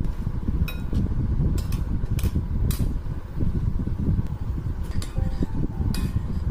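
A small metal cheese grater knocks and clinks against a ceramic bowl several times during grating. Near the end a utensil clinks on the bowl and plate. All of it sits over a loud, steady low rumble.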